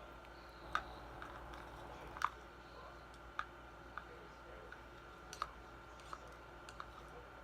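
Slime being worked with a mixing tool: scattered light clicks and taps, about one every second, as the tool knocks against its container, over a faint steady hum.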